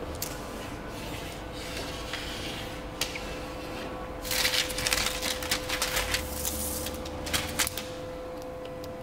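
Sheets of plastic window-tint film rustling and sliding on a work table as they are handled and smoothed out, with a louder spell of rustling about four seconds in and another brief one near the end, over a steady hum.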